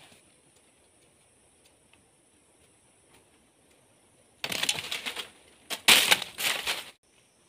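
Dry crackling and rustling as bamboo sticks are handled and moved over dry leaf litter, in two bursts past the halfway point, the second louder.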